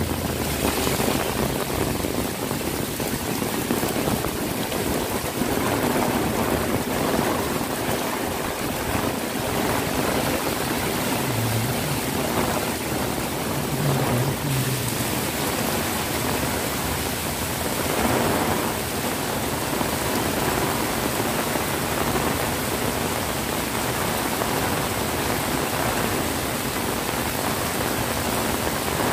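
Heavy rain pouring onto a paved road and sidewalk, a dense, steady hiss that holds at an even level throughout.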